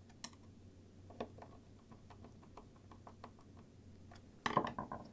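Small clicks and taps of wire leads and alligator clips being handled and hooked together, with a quick cluster of louder clicks near the end.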